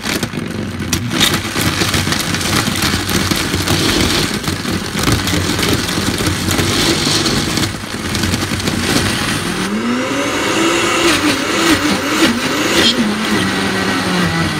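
Vitamix S50 blender motor starting up and crushing ice cubes, a loud steady whir with sharp clicks of ice. About ten seconds in, the motor's pitch rises and then wavers up and down as it chugs under the thick frozen load.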